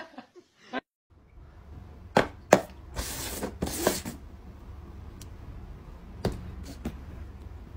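Paper cups knocked down and slid across a tabletop in a cup-shuffle game: a couple of sharp taps, a second or so of shuffling scrape, then two more taps, over a low steady hum.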